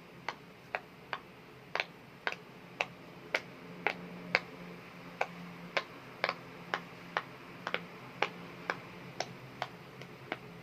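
A run of sharp, short taps or clicks, about two a second, slightly uneven in spacing and strength, over a faint steady hum.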